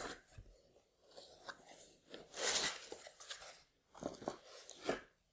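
A cardboard model box being opened and its packing handled: irregular scraping, crunching rustles and small clicks, with a longer rustle about halfway through and a few sharp clicks near the end.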